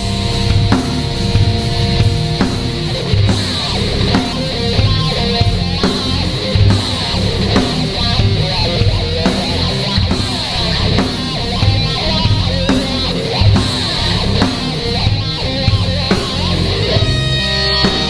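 Instrumental rock music: electric guitar playing over a drum kit that keeps a steady beat.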